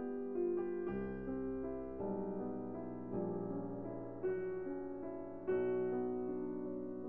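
Background piano music, chords changing every second or so, with a low bass line coming in about a second in.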